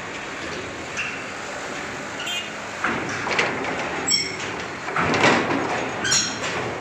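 Small cargo truck rolling slowly onto a ferry's steel loading ramp, its engine running under a steady rumble of mechanical noise. A few short, sharp high-pitched sounds cut through along the way.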